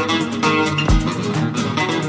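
Background music led by plucked, strummed guitar, with a deep drum thump about a second in.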